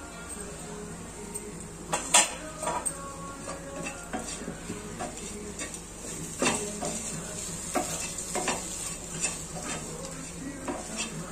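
A spatula stirs and tosses spiced raw banana fry pieces in a non-stick frying pan, making irregular scrapes and knocks against the pan over a faint sizzle. The stirring starts about two seconds in, with its loudest knock right then and another at about six and a half seconds.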